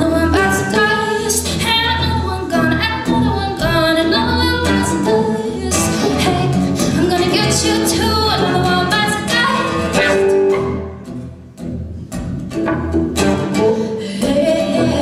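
Live rock band playing, with a female vocalist singing over electric guitar, drums and a pulsing bass line; the music briefly drops back about eleven seconds in.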